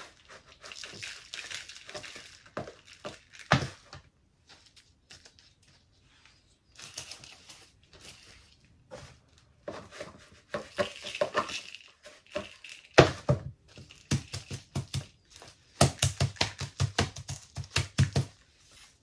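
Potting soil poured and shaken from a plastic mixing bowl into a small plastic pot: rustling and scattering grains, with knocks of plastic on plastic. Near the end comes a quick run of soft thuds as the soil is pressed down in the pot.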